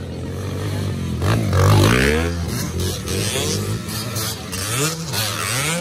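Several two-stroke dirt bikes revving as they ride past one after another, the engine pitch climbing and dropping with each pass. The loudest pass comes about two seconds in, with another bike revving up near the end.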